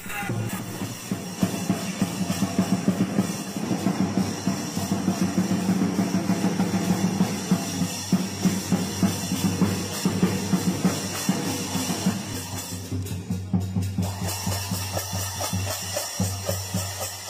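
Lion dance percussion: a large Chinese drum beaten in a fast, steady rhythm with clashing cymbals. The cymbals drop out briefly about two-thirds of the way through, then come back in.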